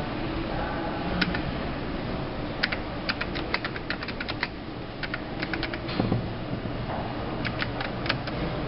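Typing on a metal-panelled public kiosk keyboard: sharp key clicks in short runs, with pauses between words.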